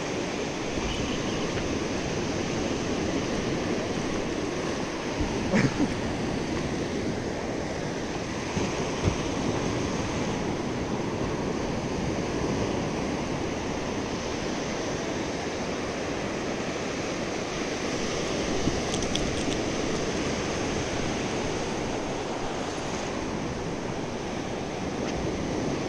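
Small sea waves breaking and washing up a sandy beach: a steady rushing surf, with a brief knock a little over five seconds in.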